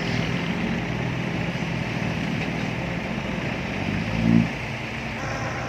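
Diesel engine of a six-wheel dump truck running steadily under load, not picking up, which the driver suspects is from running low on fuel. About four seconds in there is a short, loud, low-pitched blast.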